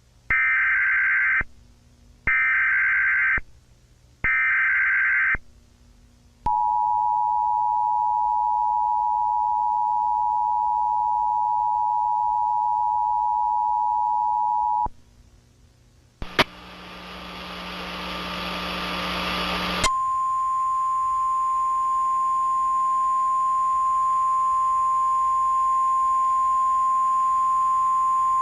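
Emergency Alert System tones. Three short bursts of the warbling data header come first, then the two-tone attention signal is held for about eight seconds. After a short gap there is about three and a half seconds of static, then a single steady tone.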